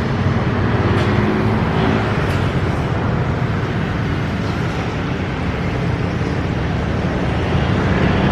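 Motor vehicle running steadily, with a constant low engine hum under road noise.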